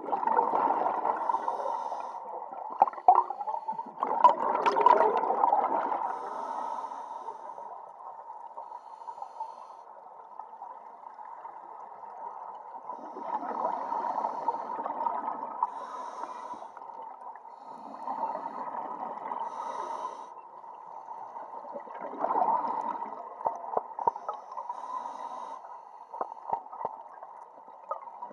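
Scuba diver breathing through a regulator, with exhaled bubbles gurgling in swells about every four to five seconds, heard muffled through the camera's underwater housing.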